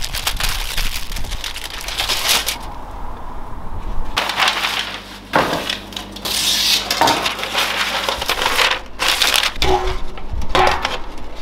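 Aluminium foil crinkling as it is folded tightly around a rack of ribs, then, about halfway through, stiff butcher paper rustling and sliding as it is unrolled, smoothed flat and laid into a foil tray, with a few light knocks near the end.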